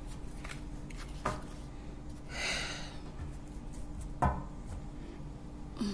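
Tarot cards being handled on a desk: a brief rustle near the middle and two soft knocks, the louder about four seconds in, over a steady low hum.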